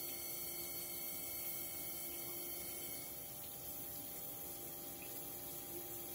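Jones & Shipman cylindrical grinder grinding a steel shaft under flood coolant: a steady machine hum with coolant splashing over the work.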